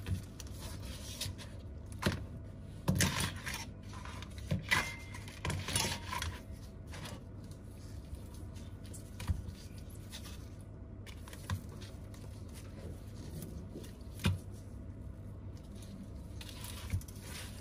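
Handling noise from an iPad display panel being lifted, set down and turned over: scattered light clicks, taps and scrapes of glass, metal and plastic parts, busiest in the first several seconds and sparser after, over a steady low hum.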